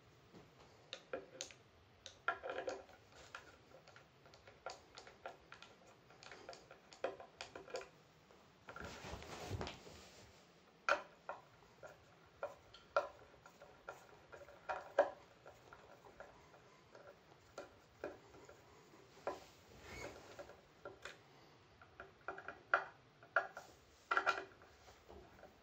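Irregular small clicks and taps as a screwdriver works on a Rega tonearm and its metal parts are handled, with a short rustle about nine seconds in.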